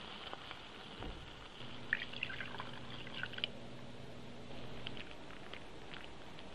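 Water or broth poured from a measuring cup into a hot stainless steel pot of sautéed mushrooms and onions. It runs for about three seconds from about a second and a half in, with sputtering crackles over the fading sizzle.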